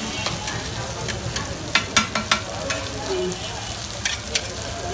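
Egg frying in oil on a large flat griddle, with a steady sizzle. A metal spatula clinks and scrapes against the griddle several times, mostly around the middle and again near the end.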